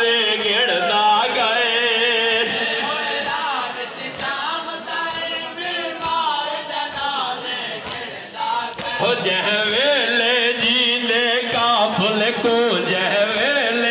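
Male voices singing a noha, a Shia mourning lament, in a wavering melody with heavy vibrato, joined by a chorus of the crowd. Recurring slaps of the mourners' chest-beating (matam) keep a beat under the singing.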